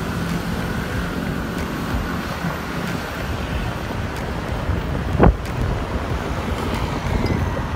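Wind buffeting the microphone on a moving scooter, over a steady rumble of street traffic, with one sharp thump about five seconds in.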